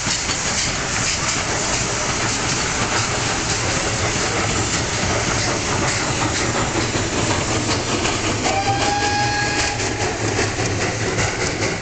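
Several steam locomotives rolling slowly past in a line, steam hissing and wheels clacking over the rails with many small knocks. About eight and a half seconds in, a locomotive whistle sounds one held note for about a second and a half.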